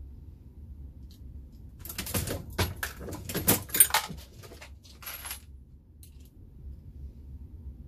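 Dillon Square Deal reloading press being cycled: a quick run of metallic clicks and clinks for about three seconds, then a shorter clatter.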